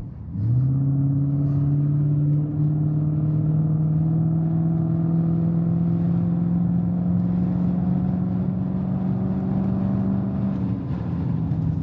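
Vehicle engine pulling on a steady climb up a mountain pass, its note rising slowly and evenly, then dropping near the end as it eases off.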